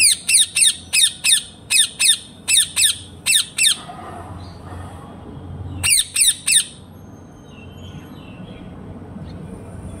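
A parrot giving a rapid series of shrill squawks, each sweeping down in pitch: about a dozen in quick succession over the first three and a half seconds, then three more a couple of seconds later.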